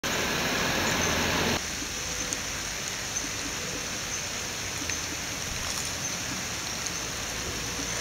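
Steady rushing of water. It is louder for the first second and a half, then drops at an edit to a lower steady level, with a few faint ticks.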